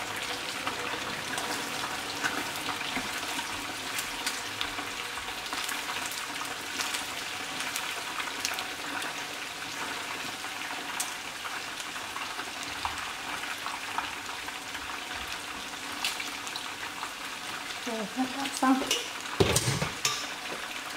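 Chicken wings deep-frying in hot oil in a pot: a steady crackling sizzle with scattered small pops, as wooden chopsticks turn the wings. A knock near the end.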